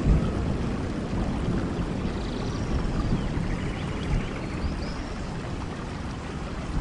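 Heavy rain and a waterfall making a steady rush of falling water, with a low rumble of thunder easing off over the first seconds and a few faint high chirps.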